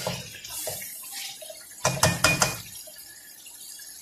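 A metal spoon stirring and scraping thick masala and chicken in a metal kadai while it is fried down, with a few sharp metal clinks of the spoon against the pan about two seconds in, then only faint pan noise.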